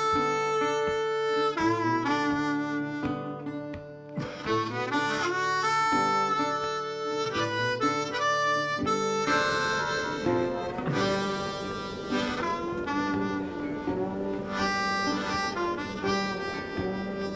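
Background music led by a harmonica, with other instruments joining in more fully about halfway through.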